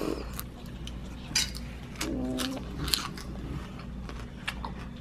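A child chewing a mouthful of lettuce: scattered crisp clicks and wet mouth sounds, the sharpest about a second and a half in and near three seconds, with a brief low voiced whine about two seconds in.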